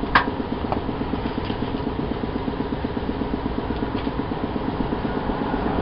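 An engine running steadily at idle, an even pulsing drone, with a single sharp click just after the start.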